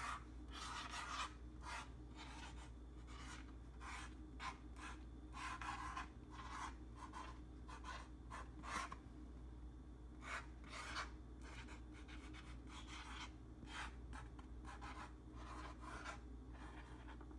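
Marker pen tip rubbing across a board as words are hand-lettered: faint, short scratchy strokes, one per letter stroke, with brief pauses between them, over a faint steady low hum.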